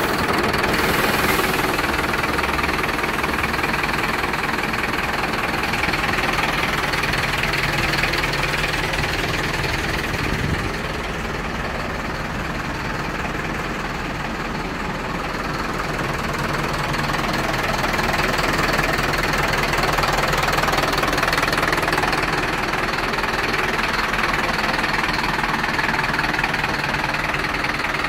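Mercedes-Benz Atego 1218 tipper's four-cylinder diesel engine idling steadily, a little quieter from about ten to sixteen seconds in.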